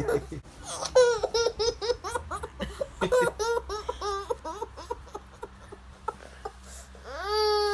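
Baby laughing in a rapid string of short pitched bursts, about four a second, as he is kissed and nuzzled, with a longer drawn-out sound near the end.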